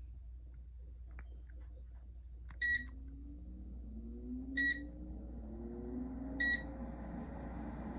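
An electric space heater beeps three times, short and high, about two seconds apart, as its controls are set, while its fan starts up: the airflow grows louder and the motor's hum rises in pitch.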